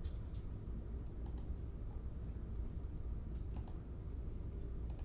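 Computer keyboard typing: a few scattered keystrokes over a steady low hum.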